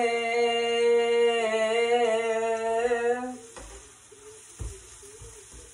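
A woman singing unaccompanied, holding one long note at a steady pitch for about three and a half seconds before breaking off. A few faint low knocks follow near the end.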